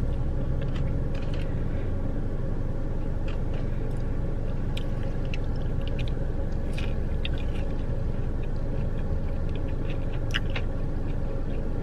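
A person chewing food, with scattered small crunches and mouth clicks, over a steady low hum in a parked car's cabin.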